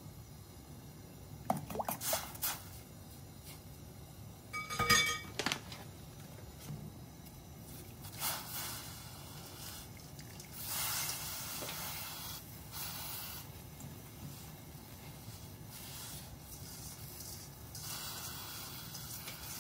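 A metal spoon clinks against a stainless steel pot a few times, the loudest a ringing tap about five seconds in. Then soybean sprouts are tipped into the pot of hot water, rustling and splashing softly.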